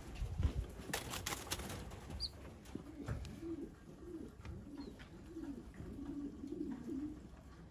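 Racing pigeons cooing: a low, wavering coo repeated through the second half. It is preceded by a few sharp knocks and clicks in the first two seconds.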